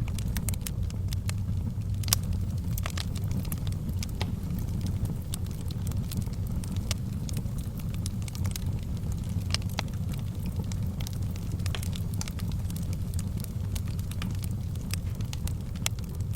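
Fire burning in a fireplace: a low steady rumble of flames with sharp crackles and pops scattered irregularly through it, the loudest pop about two seconds in.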